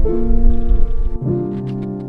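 Background music: slow held chords that move to a new chord a little over a second in, over a low rumble.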